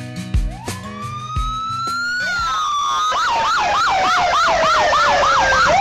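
Emergency vehicle siren. A wail rises over the first couple of seconds, then switches to a fast yelp of about three cycles a second over a slowly falling tone, and a new wail rises near the end. Guitar-like music fades out in the first two seconds.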